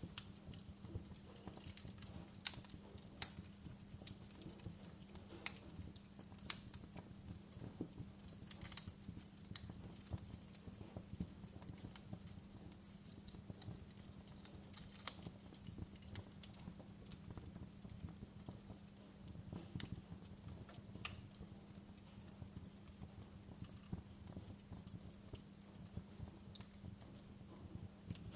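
Wood fire in a fireplace crackling, with irregular sharp pops, a few of them louder, over a steady low hum.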